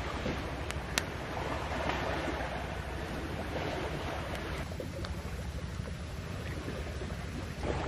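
Steady rush of wind on the microphone and surf, with a couple of sharp clicks about a second in.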